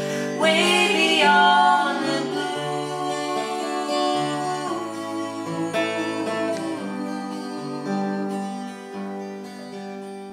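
Acoustic guitar played slowly and steadily in the passage between sung lines of a gentle song. A woman's singing voice comes in over it in places, near the start and again midway.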